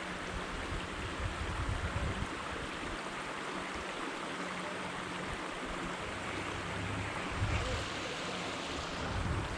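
Rushing creek water: a steady, even hiss of flowing water, with occasional low rumbles on the microphone.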